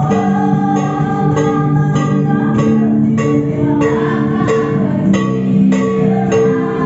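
Music with a steady beat of about two strokes a second: plucked strings carrying held notes, with a singing voice.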